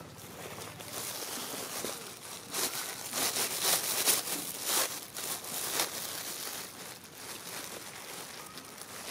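Crinkly rustling, with a dense run of short crackles about two and a half to six seconds in, then lighter rustling again.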